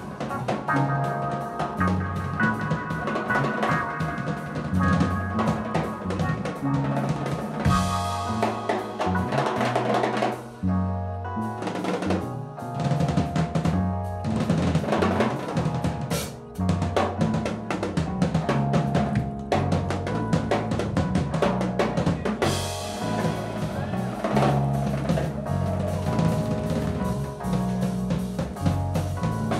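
Live jazz-funk band playing, with a busy drum kit (snare, kick and cymbals) over a walking bass line and electric keyboard. The cymbals and high end drop out briefly about ten seconds in, then the groove carries on.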